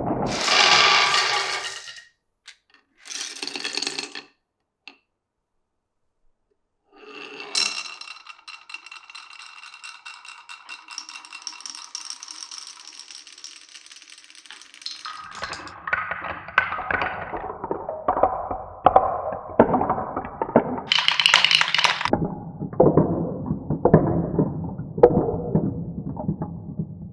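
Marbles rolling and clacking through a wooden and clear-pipe marble run: a short rattle, a pause, a steady ringing roll for several seconds, then a long run of sharp clacks as they drop along the track.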